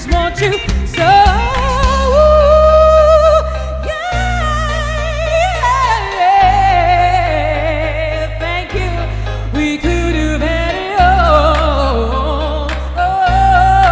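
A woman's high singing voice holding long, wavering notes and sliding between pitches without clear words, over band accompaniment with sustained bass notes that break off briefly several times.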